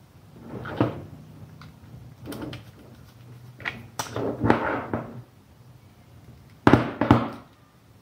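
Handling noise from a plastic AC contactor as it is turned in the hands and a wire is pushed into its A1 coil terminal: a string of scrapes and knocks, the sharpest two close together about a second before the end, over a faint steady low hum.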